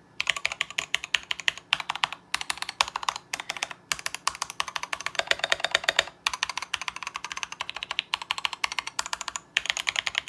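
Fast typing on a BT61 mechanical keyboard fitted with thick dye-sublimated PBT keycaps in the XDA profile: a dense, continuous clatter of key clicks with a few brief pauses. The keys are being tried out right after the keycap swap.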